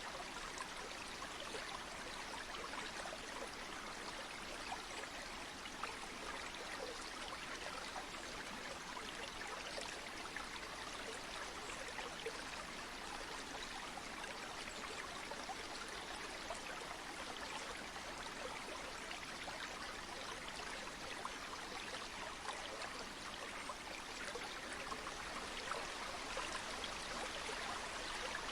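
A river flowing: a steady, even rush of water with fine splashing.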